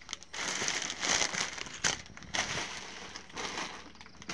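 Plastic packs of banana chips crinkling and rustling as they are picked up and arranged by hand, in irregular bursts with a short lull about two seconds in.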